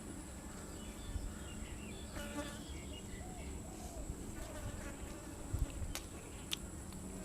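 A steady high-pitched insect drone, with a few short chirps in the middle and several sharp clicks near the end.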